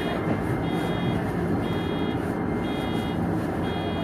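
Japanese railway level-crossing alarm ringing ahead of the train, a high electronic multi-tone beep about once a second, over the steady running noise and motor hum of the Shizuoka Railway electric train heard from the cab.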